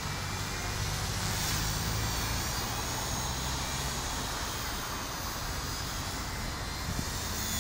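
WLtoys V977 Power Star X2 RC helicopter in flight, its brushless motor and rotor blades giving a thin high whine, under heavy wind rumble on the microphone.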